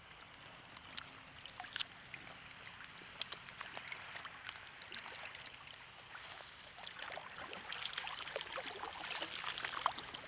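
River water trickling and lapping around a kayak, with many small splashes and drips, busier in the second half.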